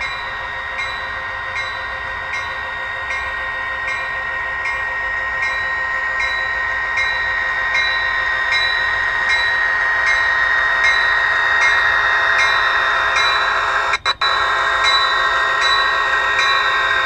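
Model SP GP40 diesel locomotive's sound decoder playing a diesel engine sound through its small speaker, steady and growing louder as the locomotive rolls slowly closer. About 14 seconds in the sound briefly cuts out twice.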